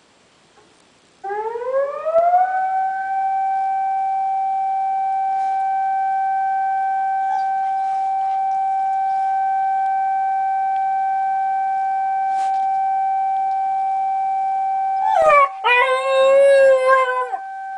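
Civil-defence siren from the public disaster-prevention loudspeaker, sounding the signal for a moment of silence: it starts about a second in, rises in pitch, then holds one steady tone. Near the end a Shiba Inu howls over it, loud and wavering, for about two seconds.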